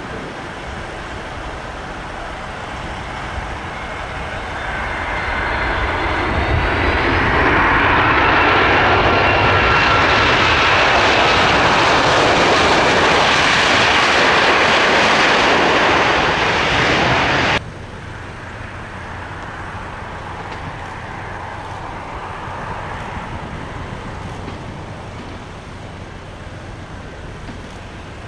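Heavy jet airliner's engines passing close, swelling to a loud rush with whining tones that slowly fall in pitch. About two-thirds of the way through it cuts off abruptly, leaving a quieter, steady engine and traffic rumble.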